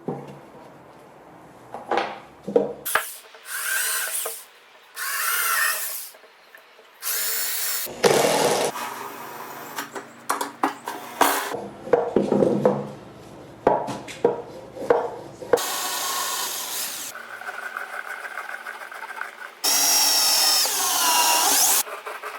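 Short bursts of a power drill or driver running into wood, cut one after another, with knocks and taps of handling the work between them. Near the end a longer burst winds down in pitch as the drill slows.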